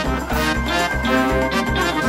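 Background music with a steady bass beat and pitched instrument notes.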